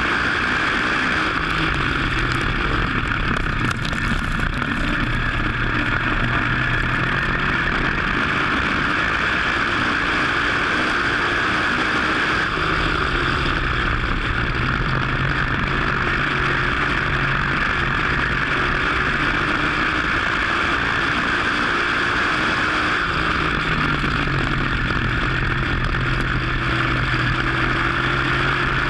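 WISSOTA dirt modified race car's V8 engine running at racing speed, heard onboard. Its note drops three times, about every ten seconds, as the driver lifts into the turns, then holds and builds again down the straights.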